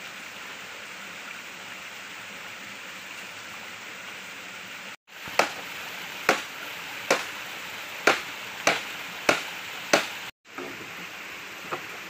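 Blade chopping bamboo: about seven sharp strikes, roughly one a second, through the second half, over the steady rush of a stream.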